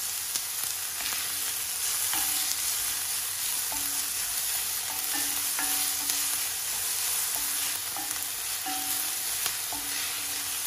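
Diced onion and chili peppers sizzling gently in a little oil in an enamelled cast-iron pan, sweating over low to medium heat, with a wooden spoon scraping and tapping against the pan as they are stirred.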